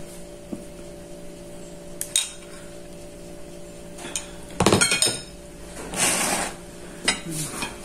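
Metal spoon clinking and scraping against ceramic bowls and plates as food is served at a table, with a loud cluster of clinks and knocks about halfway through. A short rustle follows as crispy fried food is handled, and a faint steady hum runs underneath.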